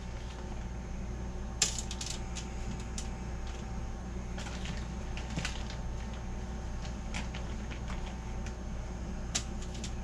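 Plastic bag crinkling and rustling in short, irregular clicks as seasoned potato wedges are pulled out of it and set down on aluminium foil. Under it runs a steady low hum.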